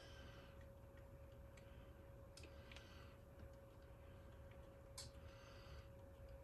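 Near silence with a few faint clicks and ticks of a plastic wire connector and wires being handled as it is fitted and tightened onto a wire, the sharpest about five seconds in, over a faint steady hum.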